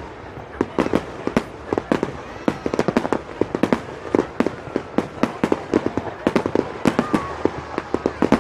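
Fireworks display: a rapid, irregular string of sharp bangs and pops, several a second, over a steady background din.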